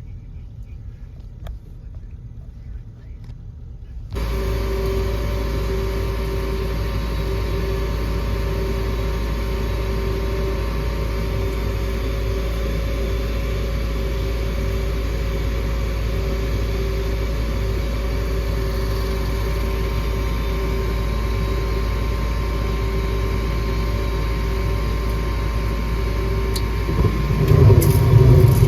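Gas furnace running: a steady mechanical hum with a steady tone through it, starting abruptly a few seconds in, joined near the end by a much louder low rumble.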